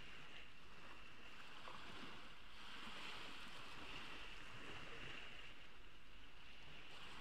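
Ocean waves washing steadily onto a beach.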